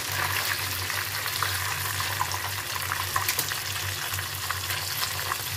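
Flour-coated fish pieces deep-frying in a pot of hot oil: a dense, steady sizzle full of small crackles and pops, over a low steady hum.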